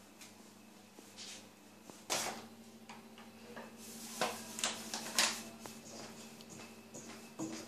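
Scattered knocks and clatters of a stainless steel mixing bowl and hands on a wooden tabletop as flour is spread and yeast dough is scraped out of the bowl, several in quick succession from about four seconds in. A low steady hum runs underneath.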